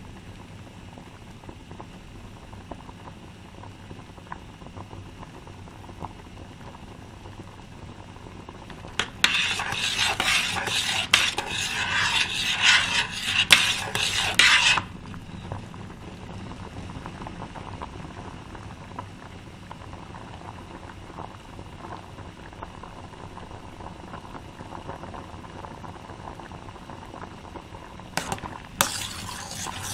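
A utensil stirring food in a pot, scraping against the pot in a quick run of strokes for about six seconds midway, and again near the end. Between the two, there is a low steady hiss.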